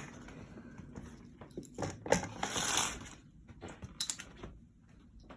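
A window covering being pulled open to let in light: a few clicks and rattles, a swish about two seconds in, and more clicks near four seconds.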